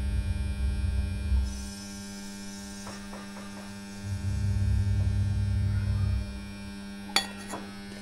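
Steady low electrical hum of a running refrigerator compressor, with two spells of low rumble and a few light clicks as the gauge and gas can are handled.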